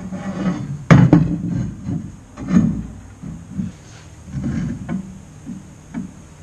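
Knocks and rubbing from square steel tubing being handled and fitted against a welded tube chassis frame: two sharp knocks about a second in, then softer thumps and scraping.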